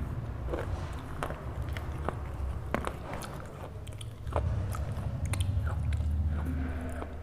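A dry red slate bar being bitten and crunched between the teeth: sharp, irregular cracks, with a stretch of denser low grinding chews about four seconds in.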